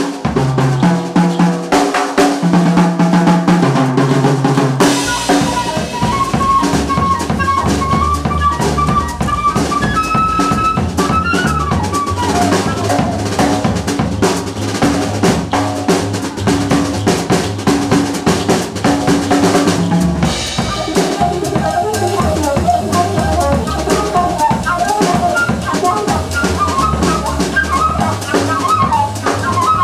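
Live small-group jazz: a drum kit played busily, with snare and bass drum, under a bass line. From about five seconds in a wind instrument plays a melody of held notes, which turns into quicker runs in the last third.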